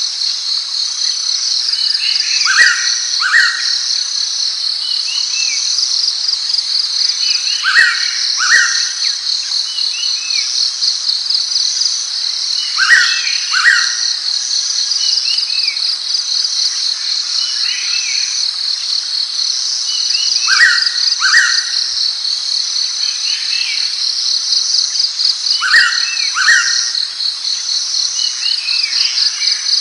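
Blue-winged pitta calling its clear two-note whistle, each note sliding downward, about every five seconds. A steady fast-pulsing insect chorus and faint chirps of other birds run behind it.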